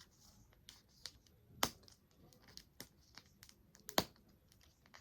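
Small plastic toy capsule and its wrappers being handled and opened by hand: scattered light clicks and crinkles, with two sharper snaps about a second and a half in and again about four seconds in.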